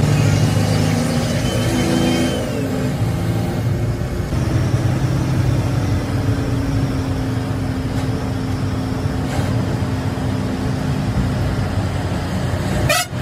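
A bus's diesel engine running at speed, heard from inside the cab with road noise. The engine note shifts and the level dips about two seconds in, and the sound breaks off briefly near the end.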